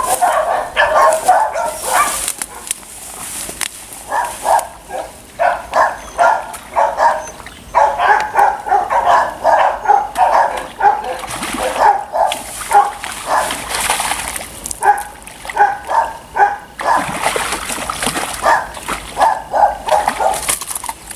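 A dog barking in quick runs of short barks, with brief pauses between the runs.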